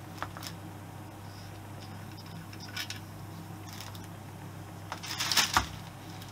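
Scattered light clicks and taps of small metal parts or tools being handled, with a short burst of clatter about five seconds in, over a steady low hum.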